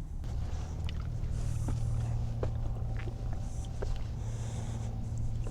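A steady low motor hum, with a few sharp light clicks and short bursts of rustling over it.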